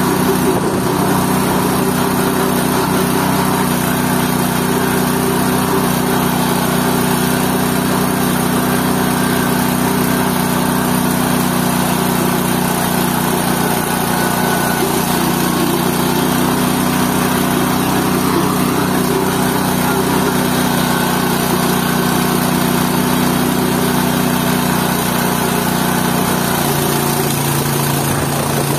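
GT-14 organic waste pulping machine running steadily under its motor, its pitch dropping a step shortly before the end.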